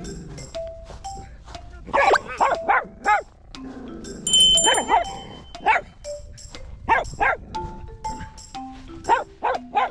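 Toy poodle barking in short runs of high, quick barks, about five runs of one to four barks each, over background music with a light steady beat.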